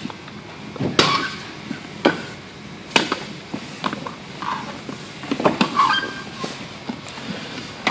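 Firefighter's turnout gear and air-pack cylinder knocking and scraping against a wooden picnic table and concrete floor as he crawls under the table. Several sharp knocks with rustling between them, bunched together around five to six seconds in.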